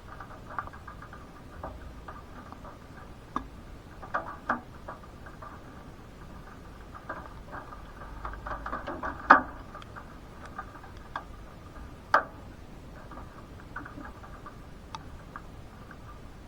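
Scattered raindrops pattering and ticking irregularly on a hard surface, with a few louder single drops knocking, the loudest about nine and twelve seconds in.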